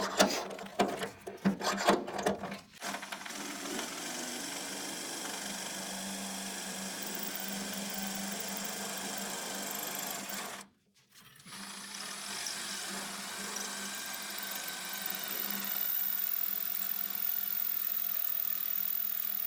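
Electric drill boring through hard weld bead built up in a steel door hinge, running steadily. It cuts out suddenly for under a second just before halfway through, then runs on.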